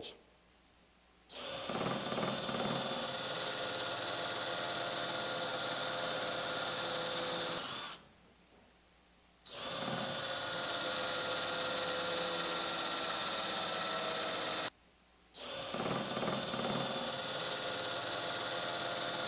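Cordless drill running steadily as a countersink bit bores screw holes into a wooden bun foot. Three separate runs of several seconds each with short pauses between them, one for each hole.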